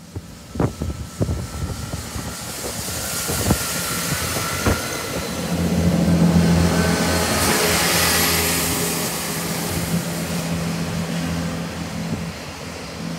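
A GWR Class 165 Turbo diesel multiple unit pulling away and passing close by, its underfloor diesel engines working under power with a steady drone and hiss. The sound is loudest about halfway through and eases as the train draws away. A few sharp clacks come from the wheels on the rails in the first few seconds.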